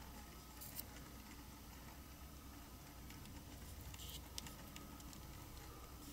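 Quiet handling sounds: a plastic mixing cup and a wooden skewer working resin into a silicone mould, with a few small clicks, one about a second in and a cluster around four seconds in, over a low steady hum.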